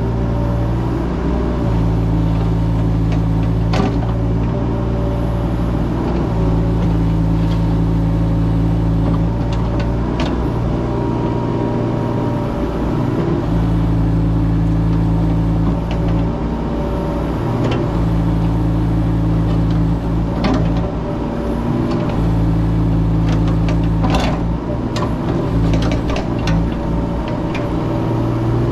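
Mini excavator's diesel engine running steadily while it works, its note wavering at times, with a few sharp knocks and clanks over it.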